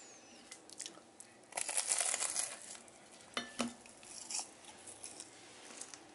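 Flaky puff pastry of a spinach and ricotta triangle crackling and crunching as it is bitten, loudest for about a second. About three and a half seconds in come a couple of short clinks of the pastry and hand against a ceramic plate, then a smaller crackle.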